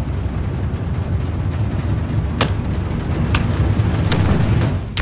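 A loud, dense low rumble, a dramatic film sound-design drone, with sharp cracking hits about two and a half seconds in, again near three and a half and four seconds, and at the very end.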